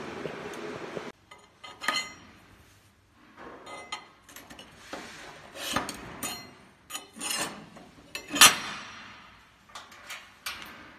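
Double-pulse MIG welding arc from a PROMIG-500SYN DPulse XT welder running on mild steel, a steady hiss with a low buzz that cuts off about a second in. Then come irregular metallic clinks and knocks from the steel workpieces, with one sharp knock about three-quarters of the way through the loudest.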